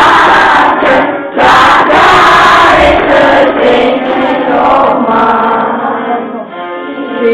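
A group of children singing and shouting together in unison, very loud for the first few seconds, then settling into steadier singing.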